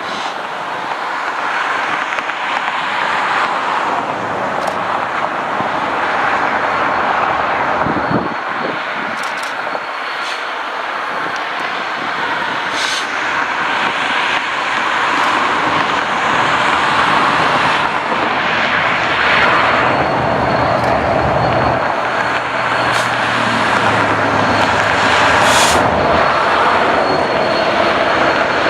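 A train running by: a steady rushing rumble that slowly grows louder, with a faint low engine tone in the second half.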